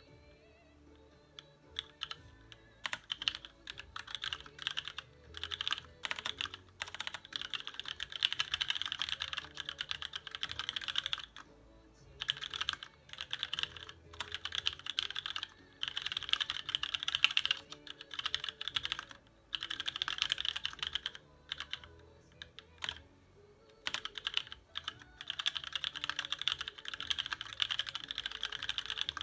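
Fast typing in runs on a custom mechanical keyboard with an aluminium TX1800 case and plate, lubed Cherry MX Black linear switches and thick doubleshot ABS Cherry-profile keycaps, with short pauses between runs. Faint music plays underneath.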